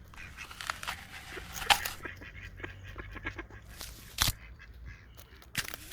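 An animal chewing and crunching food: a run of small crackling bites with a few louder, sharper crunches, one at about two seconds in, one past four seconds and one near the end.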